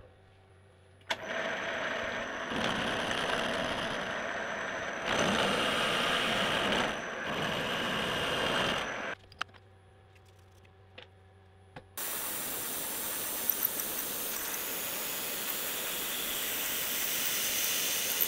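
Milling machine spindle running with a spiral end mill cutting steel, the cutting noise rising and easing in stretches until it stops about nine seconds in. After a few quiet seconds a steady hissing machine sound starts suddenly: a twist drill boring into a round steel bar.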